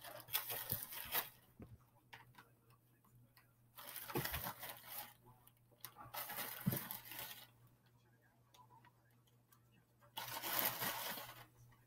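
Clear plastic bag of Reese's chips crinkling and rustling as it is handled and shaken, in about four separate bursts of a second or so each.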